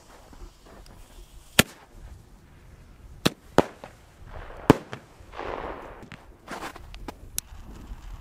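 Fireworks going off in sharp, firecracker-like bangs: about six single cracks at irregular intervals, including two quick pairs, with short stretches of noise between them.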